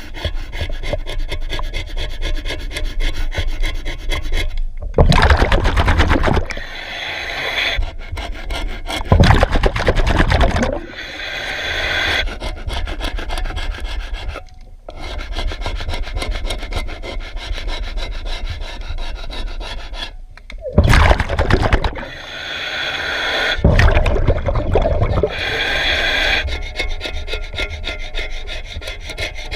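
Scrubbing on a boat hull in the water, a steady rough rubbing and rasping. Four louder noisy stretches of a second or two break in, the first two about five and nine seconds in and the others past twenty seconds.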